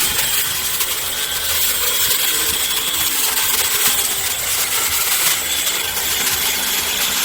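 Hand-held electric woodworking power tool running steadily as it works a piece of wood.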